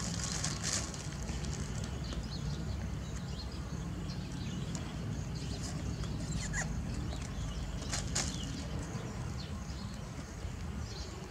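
A cardboard box and loose plastic wrap being handled, with scattered short rustles and taps. Under them is a steady low rumble of wind on the microphone.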